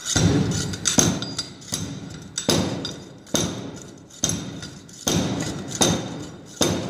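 Proctor compaction hand rammer dropped again and again inside its metal guide tube onto moist soil in the compaction mold, about one blow a second. Each blow lands with a sharp thud that rings briefly. This is the 25-blows-per-layer compaction of the standard Proctor test.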